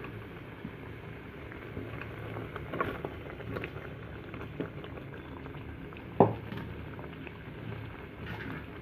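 Spiced curd gravy bubbling in a kadhai, with soft pops and small clicks as boiled potato pieces are stirred in with a spatula. One sharp knock about six seconds in is the loudest sound.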